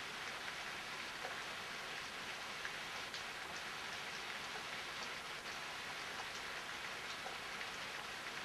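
Steady rain falling during a thunderstorm: an even hiss with scattered faint ticks of individual drops.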